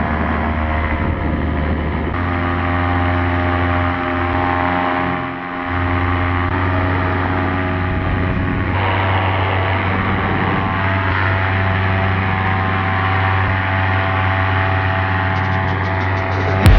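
Paramotor's engine and propeller running in flight, a steady drone whose pitch shifts slightly a couple of times, with a brief dip in level about five seconds in.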